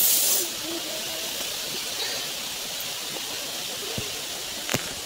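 Steady rushing hiss of a mountain stream, with a brief louder rush of noise at the start and a couple of sharp knocks near the end.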